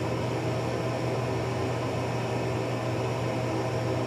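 Steady background hum with an even hiss, unchanging throughout: room tone with no distinct sounds.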